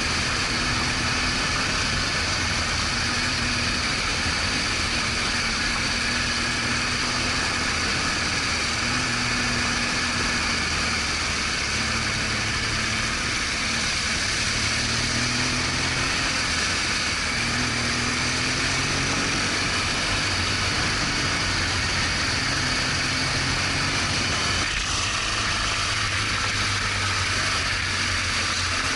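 BMW R1200GS Adventure's boxer twin engine running at a fairly steady, low pace, its pitch easing up and down a little from moment to moment, under a constant hiss.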